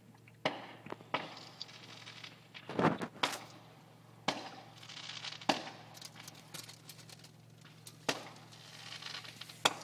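Fireworks going off: a string of sharp bangs at uneven intervals, several close together about three seconds in, each trailing off in a fading tail.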